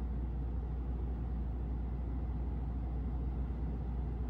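Steady low rumble of background noise inside a parked car with the engine off, with no distinct events.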